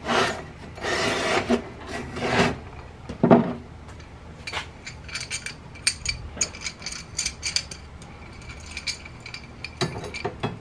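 Steel belt-grinder frame parts being handled on a workbench: metal scraping for the first couple of seconds, a knock, then a string of light metallic clinks and taps.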